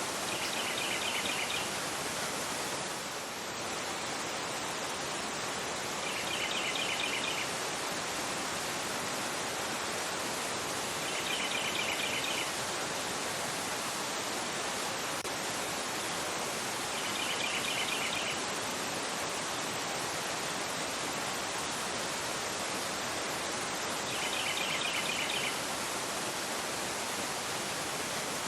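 A fast-flowing river rushing steadily over a rocky bed. A bird's short chirping trill comes in about every six seconds, five times.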